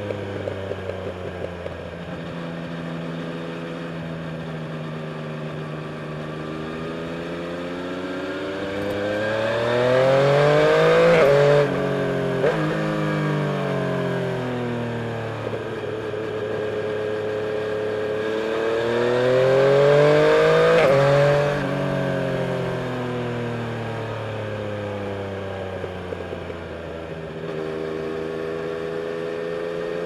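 Yamaha Tracer 900's 847 cc inline three-cylinder engine heard from the rider's seat. It accelerates hard twice, rising in pitch to a loud peak, then drops and winds down as the throttle closes.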